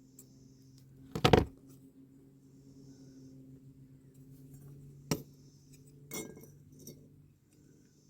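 Small metal tools clinking and knocking against a diecast metal model car body while a part is bent into line: a loud cluster of knocks about a second in, then single sharp clicks near five and six seconds.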